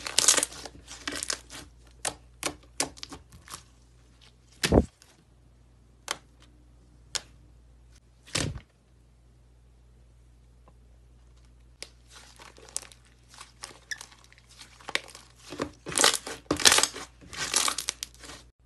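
Slime being squeezed and kneaded by hand, giving dense bursts of crackling and popping as trapped air is squashed out. Two dull thumps come in the middle, with a quieter stretch after them before the crackling starts again.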